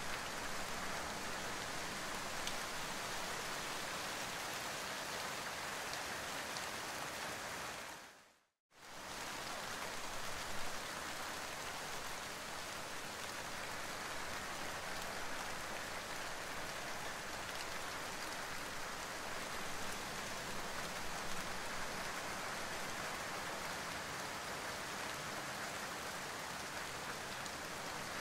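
Steady rain pattering on leafy plants, an even hiss of falling drops. About eight seconds in it fades out to silence for a moment, then comes back at once.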